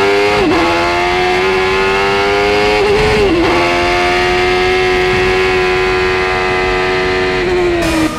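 Open-wheel race car's engine running at high revs, holding a steady high note. The pitch dips briefly about half a second in and again about three seconds in, then eases slightly near the end.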